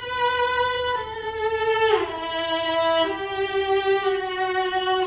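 A bowed string instrument plays a slow melody of long held notes. The line steps down, slides lower about two seconds in, then rises to a note held for the last two seconds.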